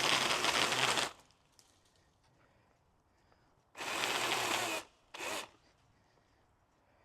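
Cordless Milwaukee M18 pole saw's chain cutting into a tree limb, stopping about a second in. After a pause the saw runs again twice, for about a second and then briefly.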